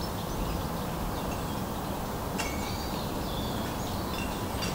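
Steady outdoor ambient noise with faint, short bird chirps scattered through it and a single sharp click about halfway through.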